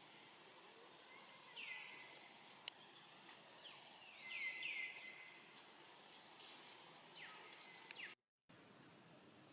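A series of short, high chirping calls, each sliding quickly down in pitch, sounding singly and in quick clusters over a faint outdoor hiss. There is a single sharp click a little before the middle, and the sound cuts out briefly near the end.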